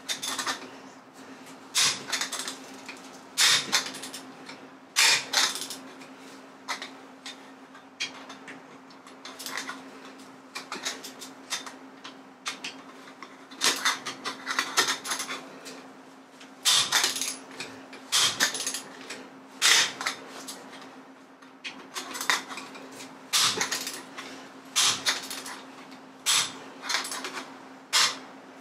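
Socket ratchet on an extension bar working car wheel nuts loose: repeated short bursts of ratchet clicking and metal clinks from the socket and bar, one every second or two.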